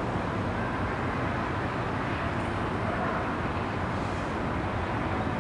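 Steady hum of distant city traffic, an even rumble with no single vehicle standing out.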